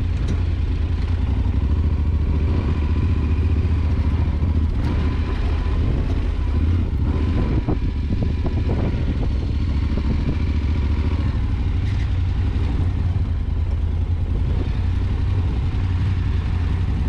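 On-board sound of an adventure motorcycle's engine running steadily at low speed off-road, with a few short clicks and clatters from the bike over stony ground around the middle.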